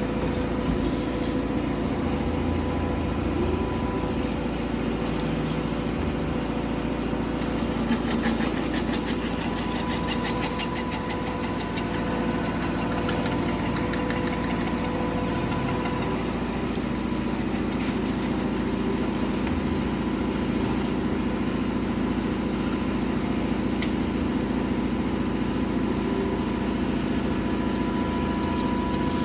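CMA Rapid Drill RD-32 CN CNC drilling line running with a steady machine hum. A few sharp knocks come about a third of the way in, and a faint high whine sounds for several seconds in the middle.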